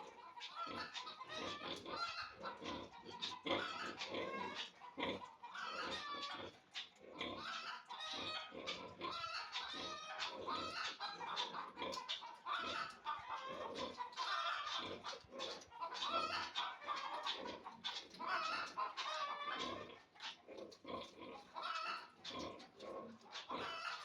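A litter of piglets squealing and grunting in a constant, busy chatter as they jostle for teats while nursing on a sow.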